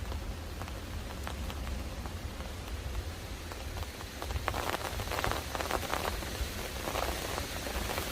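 Rain starting to fall in a windstorm: scattered individual drops at first, then a denser, louder patter from about halfway, over a steady low wind rumble.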